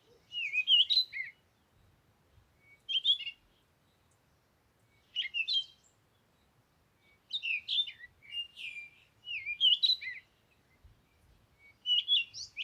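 A songbird singing short phrases of quick chirps and whistled notes, about seven phrases with brief pauses between them.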